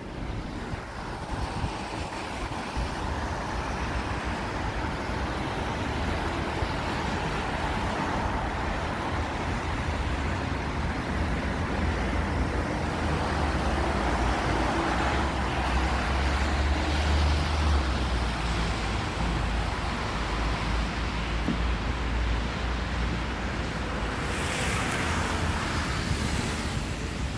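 Road traffic on a wet city street: a steady rush of tyres and engines with a deep rumble. Near the end a brighter hiss swells for about two seconds.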